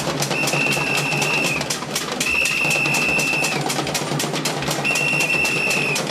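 Street procession drums beating a fast, steady rhythm, with three long, steady blasts of a high-pitched whistle.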